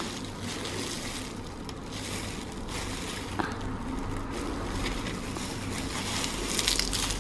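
Clear disposable plastic gloves crinkling and rustling as gloved hands squeeze and handle a piece of chocolate, the crinkling a little louder near the end, over a faint low hum.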